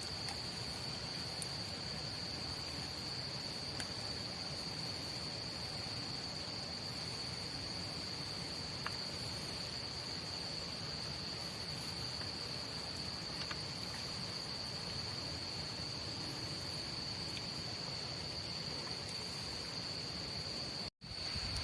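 Crickets trilling in one steady, unbroken high-pitched drone, with a few faint ticks here and there. The drone breaks off for an instant near the end.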